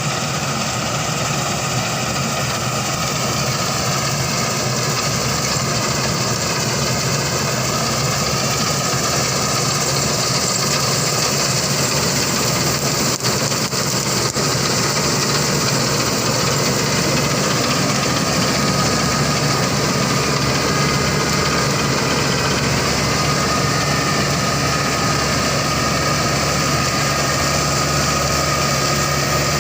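Claas Crop Tiger 40 combine harvester running steadily, its engine and machinery making a continuous even drone with a high whine and hiss on top. Two faint clicks come about halfway through.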